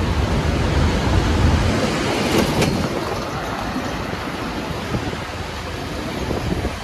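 Wind rushing over the microphone of a moving vehicle, with steady road and traffic noise underneath. There is a short sharp click about two and a half seconds in, and the rush eases a little after it.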